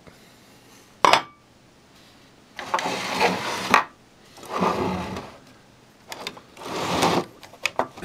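A sharp click about a second in, then three stretches of scraping and rubbing as the aluminium lid of a grid-tie inverter is slid off its finned case and the case is handled.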